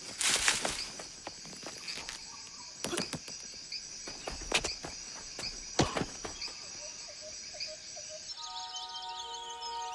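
Forest ambience with a steady high chirring of insects, broken by a few scattered footsteps and thuds as characters move through the clearing. Music comes in about eight seconds in.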